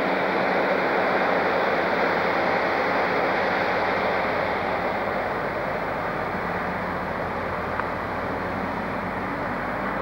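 Diesel multiple unit pulling away and running off into the distance: a steady rumble of engine and wheels with a low hum, fading a little from about halfway.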